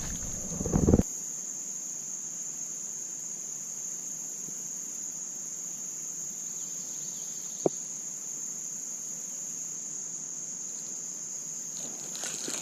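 Insects, such as crickets, trilling in one steady, high, continuous note. A low rumble of handling or wind on the microphone cuts off about a second in, and there is a single sharp click later on.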